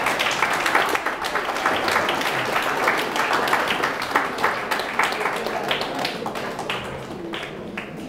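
An audience applauding, the clapping thinning out and fading toward the end.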